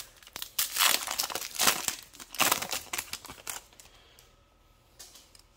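Foil Yu-Gi-Oh booster pack wrapper crinkling and being torn open by hand, a run of crackling rustles that stops about three and a half seconds in.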